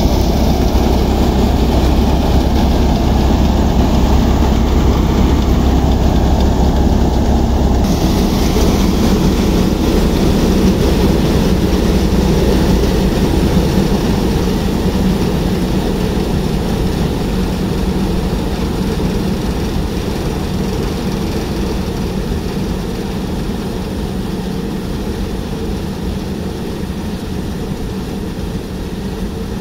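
Fiat tractor's diesel engine driving a tractor-powered thresher: a loud, steady drone of engine and spinning threshing machinery, slowly getting quieter over the second half.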